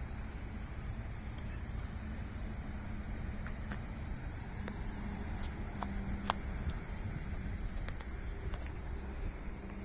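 Steady, high-pitched insect chorus of summer insects, shifting slightly higher in pitch about four seconds in, over a steady low rumble, with a few faint ticks.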